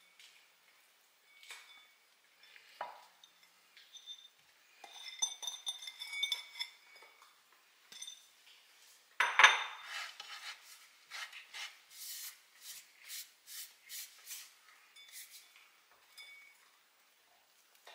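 Fingers breaking up clumped cooked rice in a ceramic bowl: light scrapes and clinks against the bowl. There is one louder knock about nine seconds in, and a little later a run of short, even scrapes at about three a second.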